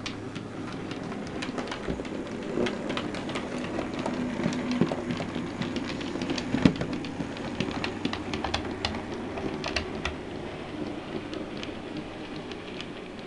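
Hornby OO gauge K1 class model locomotive running with a coach, its electric motor humming steadily while the wheels click irregularly over rail joints and points.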